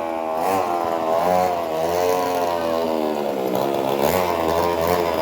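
50cc two-stroke pocket bike engine running, its pitch wavering up and down as the throttle changes.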